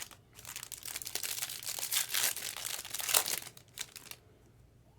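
Wrapper of a pack of trading cards being torn open and crinkled by hand: a dense crackle lasting about four seconds, then stopping.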